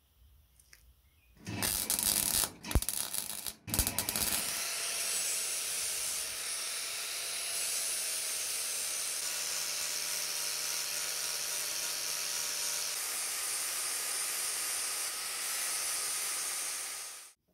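Angle grinder with an abrasive disc grinding down weld beads on a steel wheel rim. After a quiet second or so it bites in unevenly for a few seconds, then grinds steadily with a hissing, faintly whining tone, and cuts off abruptly near the end.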